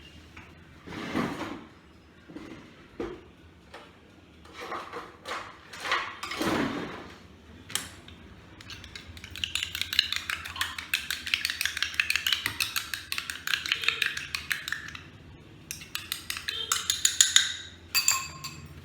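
A spoon beating egg yolk in a small bowl: a fast run of clinks against the bowl for several seconds midway, then again near the end, after a few scattered utensil knocks.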